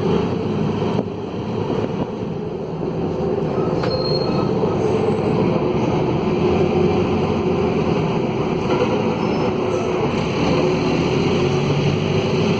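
Mercedes-Benz OM904LA four-cylinder turbodiesel of a midibus running under way with a broken exhaust, heard from inside the bus, together with the drive noise of the Allison automatic gearbox. The level dips briefly about a second in, then builds back up.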